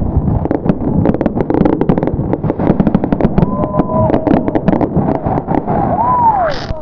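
Fireworks going off in a rapid barrage of bangs and crackles, densest in the first few seconds and thinning toward the end, with a few shouts from the crowd.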